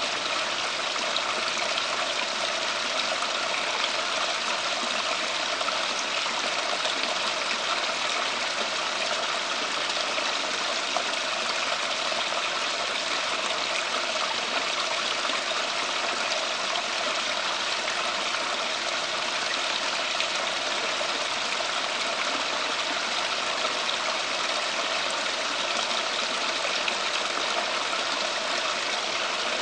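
Water running and splashing steadily in a backyard water feature, an even rushing sound that never changes.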